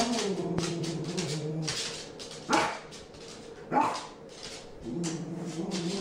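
Grey curly-coated dog vocalising in frustration: a long, drawn-out whining call, then two short sharp barks about a second apart, then another long whine near the end.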